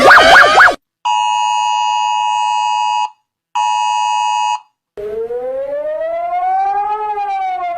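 Emergency alert alarm sounds played back to back. A fast warbling tone cuts off, then a steady two-tone alert tone sounds twice (about two seconds, then about one second). After a pause, a siren wail rises slowly and then starts to fall.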